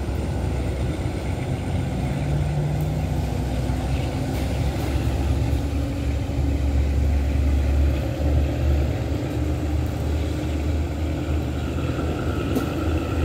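Steady low engine rumble, like an engine idling.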